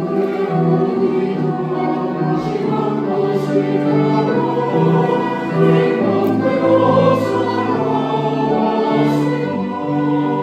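Church choir singing a sacred anthem in parts, holding long chords that move from note to note, with a few crisp 's' consonants coming through.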